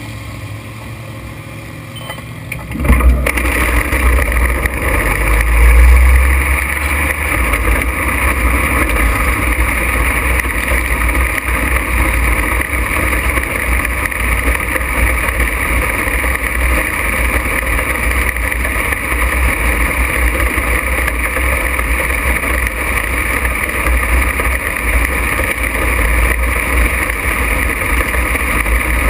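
On-board sound of an open-wheel dirt-track race car's engine. It is quieter for the first few seconds, then jumps sharply about three seconds in and runs loud and steady while the car is under way.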